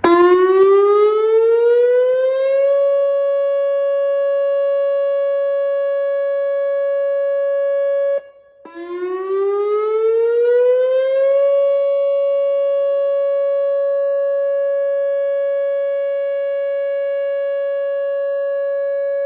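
Whelen WPS 2906 electronic outdoor warning siren sounding its steady alert tone in a routine test. It winds up over about three seconds to a steady 560 Hz tone with many overtones, cuts out briefly about eight seconds in, then winds up again and holds the tone.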